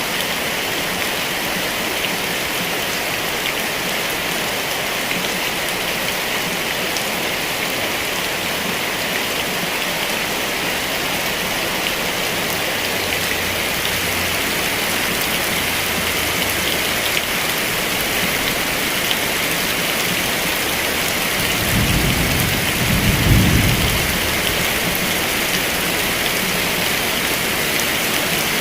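Heavy rain falling steadily. A low rumble of thunder swells for about two seconds roughly three-quarters of the way through.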